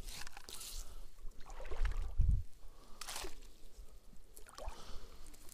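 Rustling and scraping of fishing gear being handled near the microphone, in irregular bursts, with a dull low bump about two seconds in.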